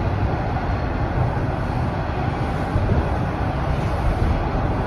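Toronto Rocket subway train running, heard inside the passenger car: a steady, even rumble of wheels on rails and running gear, with no clacks or squeal standing out.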